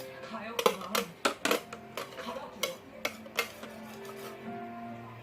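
Sharp clinks of tableware being handled, about ten in the first three and a half seconds, over soft background music with long held notes.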